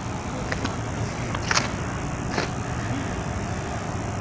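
Steady low rumble of a moving vehicle, with a few light clicks about half a second, one and a half and two and a half seconds in.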